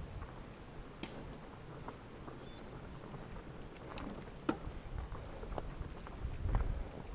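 Fatbike rolling along a dirt trail: a low rumble of tyres and wind, with scattered sharp clicks and knocks from the bike and trail.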